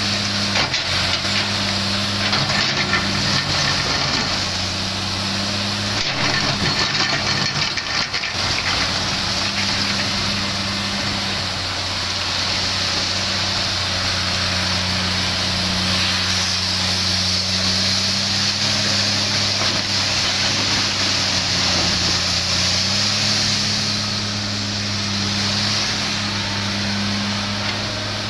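Komatsu PC300 hydraulic excavator's diesel engine running under load, its pitch stepping up and down several times as the hydraulics work the boom and bucket. Over it come scraping and clattering from the steel bucket digging into loose coal, most of it in the first several seconds.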